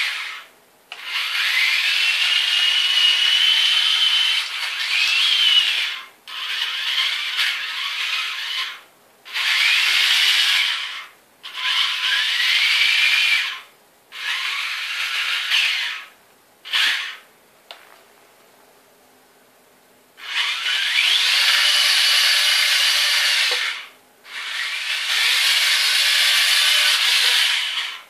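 Small electric gear motors in the Tamiya gearbox of a 1/35 Academy M1A1 RC tank whining in runs of a few seconds as the tank drives and turns. Each run often starts with a rising whine as the motors speed up, and there is a pause of about two seconds about two-thirds of the way through.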